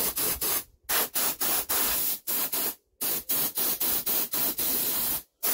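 Air blown in a rapid run of short hissing bursts, with a few brief pauses, through the float-bowl overflow of a Zenith carburettor to clear petrol out of it.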